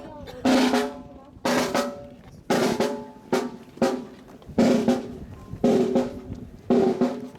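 Snare and bass drums playing a cadence: a sharp struck hit or short roll about once a second, each ringing briefly before the next.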